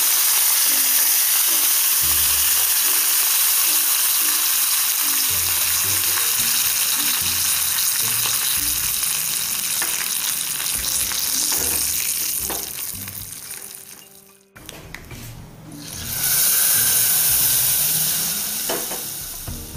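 Hot oil sizzling hard as curry leaves, dried red chilies, red chili powder and asafoetida are dropped in for a tadka tempering, the sizzle slowly dying down over about twelve seconds. About sixteen seconds in, a second loud sizzle starts as the hot tempering hits the kadhi, then tapers off.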